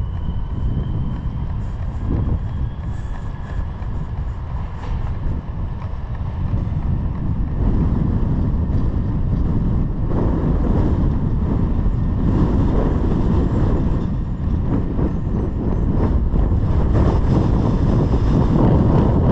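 Wind buffeting the microphone, a low rumbling flutter that grows stronger about eight seconds in.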